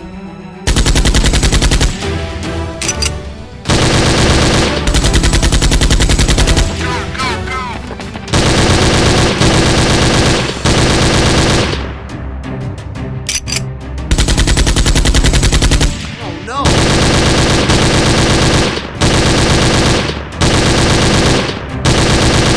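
Automatic gunfire sound effect, dubbed in for Nerf blasters: rapid machine-gun fire in about eight long bursts of one to three seconds each, with short breaks between them.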